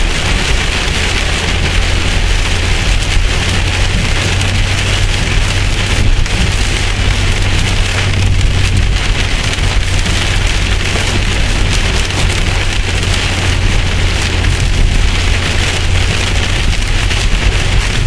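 Heavy rain pelting the windshield and roof of a moving car, a dense steady patter heard from inside the cabin, over a constant low rumble of the car on the road.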